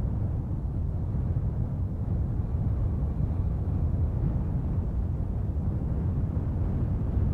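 Low, steady rumbling noise with no tone or rhythm in it.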